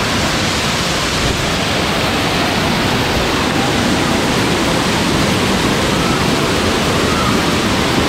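Waterfall: a steady, loud rush of falling water.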